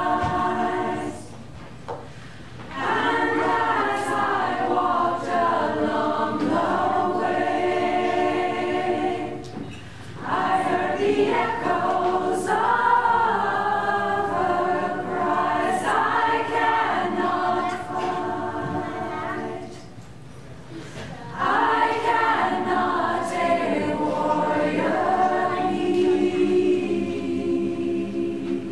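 Women's community choir singing a cappella, in long held phrases broken by three short pauses.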